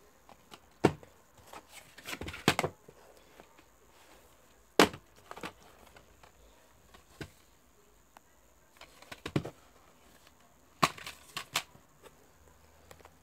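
Plastic Blu-ray cases and a card slipcover handled and a case opened: sharp plastic clicks, taps and snaps, some in quick clusters, with quiet gaps between.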